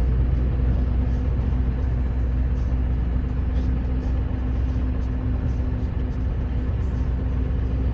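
Scania R560 truck's V8 diesel engine running at a steady speed, a low even drone with no change in pitch.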